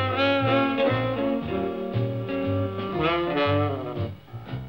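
Jazzy cartoon background score, with horns playing over a steady bass line; the music thins out near the end.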